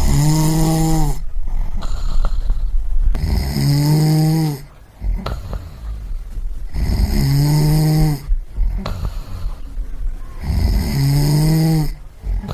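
A person snoring in a steady rhythm: four snores, about one every three and a half seconds, each a low, rasping, pitched snore lasting about a second, with a breathy hiss and a low rumble between them.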